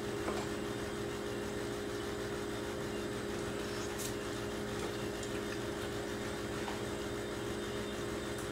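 Steady electrical hum with a few faint clicks of forks on plates.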